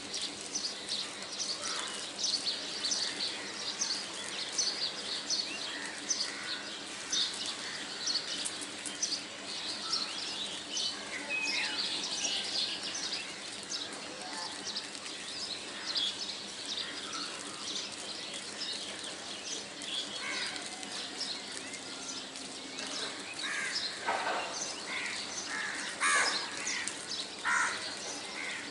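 Birds chirping and calling steadily, with a few louder, harsher calls near the end.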